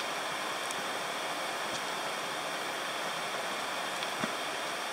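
Steady rushing of a mountain stream, even and unbroken. A few faint taps of trekking poles or boots on the rocky trail come through it.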